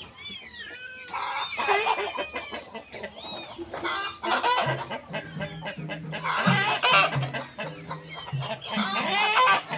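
Repeated short clucking calls like a hen's, going on throughout, with a deeper run of clucks from about halfway in.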